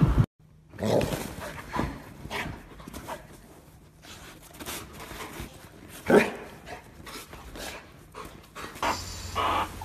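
A young white dog making short, irregular vocal and breathing sounds as it plays, with the loudest sound about six seconds in.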